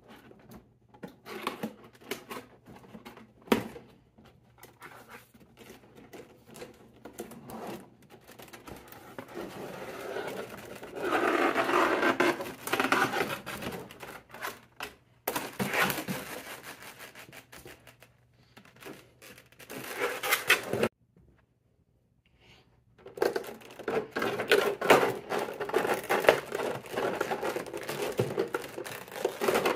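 Cardboard box and clear plastic blister trays being handled and pulled apart: irregular crinkling, scraping and clicking of stiff plastic and cardboard, with a brief break of near silence partway through.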